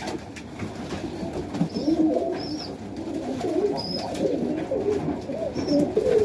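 Several domestic highflyer pigeons cooing in a loft, their low wavering coos overlapping without a break, with a few faint short high chirps every second or so.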